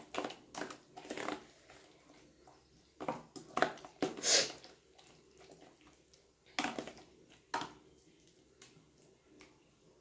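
Hand mixing sliced onions into gram-flour (besan) batter in a stainless steel bowl: scattered soft wet squishing and rustling with quiet gaps, the loudest stroke about four seconds in.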